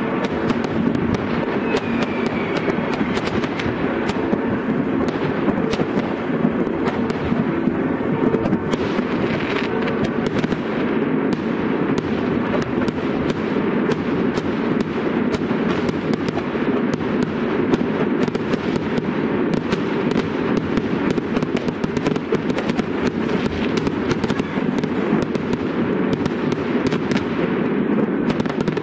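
A dense fireworks barrage: rapid bangs and crackles, too many to count, over a continuous low rumble, keeping up with no let-up.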